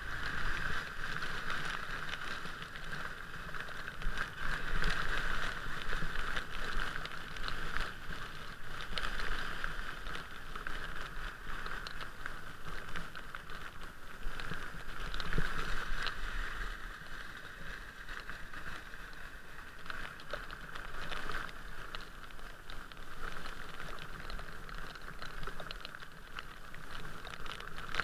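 Steady hiss of travelling along rain-soaked streets: tyres on wet pavement with rain and wind on an outside-mounted camera, plus scattered light ticks of drops hitting it.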